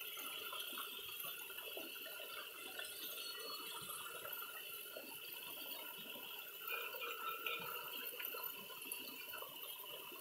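Streams of cold water pouring from a row of spouts in a stone wall, splashing steadily onto stone and over a hand held under them.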